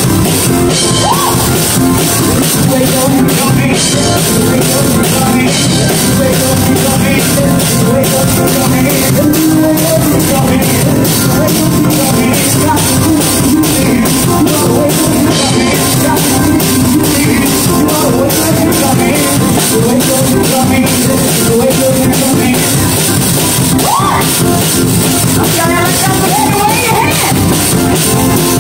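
Loud gospel praise-and-worship music with drums played over the hall's sound system, with a woman singing into a microphone.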